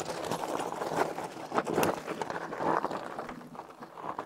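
Hiboy P6's 4-inch fat tyres crunching and clattering irregularly over loose rocks as the e-bike climbs under throttle, easing off near the end.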